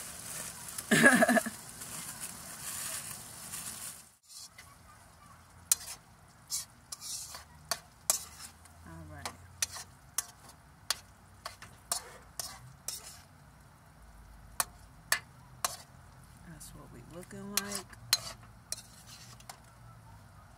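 Beef heart sizzling in a wok, with a brief loud noise about a second in; the sizzle cuts off suddenly about four seconds in. Then a metal spoon stirring the meat, clicking and scraping against the wok in a string of irregular strokes.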